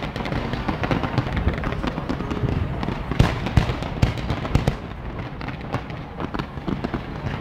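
Fireworks display going off: a dense run of booming bursts and crackling, the loudest bangs a little past the middle.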